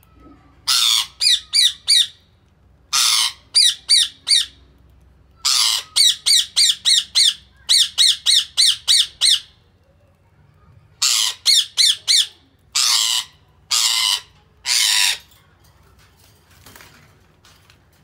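Budgerigars calling: harsh squawks, most followed by a quick run of three to six short chirps, in repeated bouts. Near the end come three longer single squawks, and then the calling stops.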